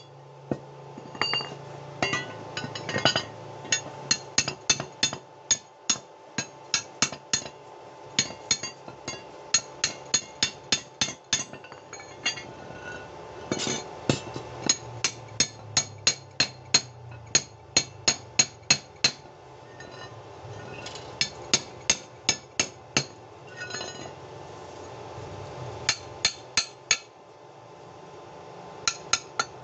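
A hammer striking steel in quick runs of ringing blows, about three to four a second, with short pauses between runs. A low steady hum runs underneath.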